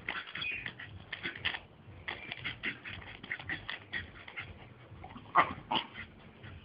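Staffordshire bull terrier making a quick run of short, sharp noises as it plays with a ball, with two louder ones about five and a half seconds in.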